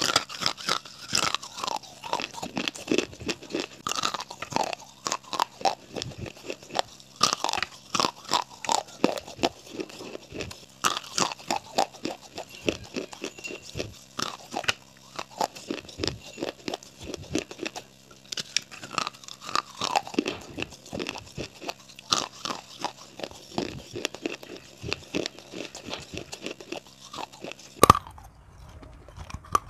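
Close-miked biting and chewing of baked clay pipes, with many sharp, dense crunches as the clay cracks between the teeth. Near the end the crunching breaks off suddenly, and a few more bites follow after a short pause.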